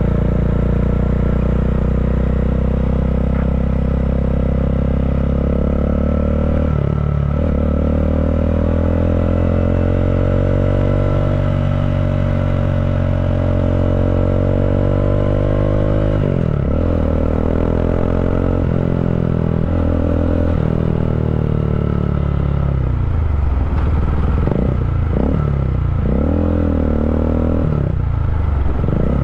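Bajaj Dominar 400's single-cylinder engine through an Akrapovic slip-on muffler, with the catalytic converter replaced by a resonator, pulling under way. The exhaust note climbs, drops sharply at two gear changes about 7 and 16 seconds in, then rises and falls repeatedly with the throttle near the end.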